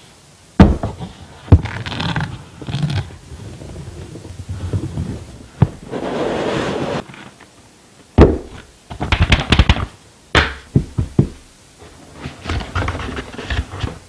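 Cardboard carton and moulded paper-pulp packaging being handled. Sharp knocks sound near the start, then a longer scrape about halfway through, then clusters of taps, knocks and rustles.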